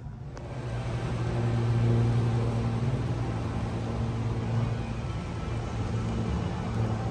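A low, steady mechanical hum like a vehicle's engine running, swelling over the first couple of seconds and then holding steady.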